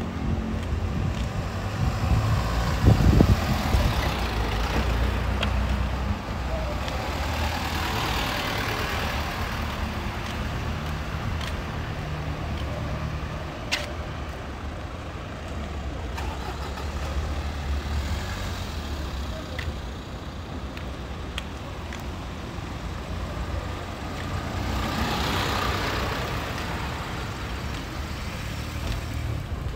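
Street traffic: cars driving slowly past, with a steady low engine rumble. Tyre and engine noise swells as each car goes by, three times. There is a single sharp click about midway.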